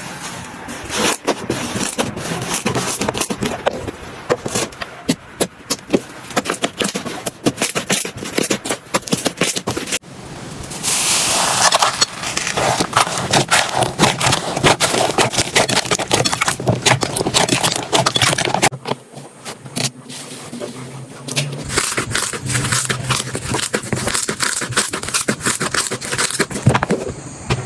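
Slime being pressed and worked by hand, making dense crackling clicks and pops. About ten seconds in there is a short hiss lasting about a second.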